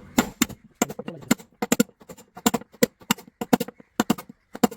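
Repeated sharp hammer taps, about four or five a second in an uneven rhythm, driving a new bearing into its seat in the washing machine's drum bearing housing.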